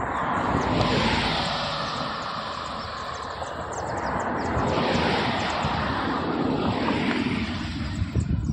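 Norfolk Southern freight train's three diesel locomotives running past, their engines rumbling steadily under a rushing noise that swells twice, about a second in and again about five seconds in.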